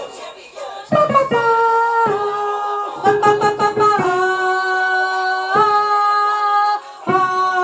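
A voice singing the alto line of a choral part in long held notes, stepping to a new note about every one to two seconds, with an instrument sounding a chord at each note change.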